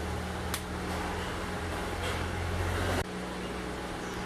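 Steady low room hum with a single sharp click about half a second in; the hum changes abruptly about three seconds in at a cut in the recording.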